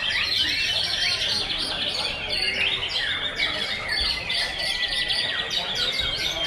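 Several caged white-rumped shamas (murai batu) singing at once: a dense, unbroken chorus of rapid whistled phrases, trills and chirps overlapping one another.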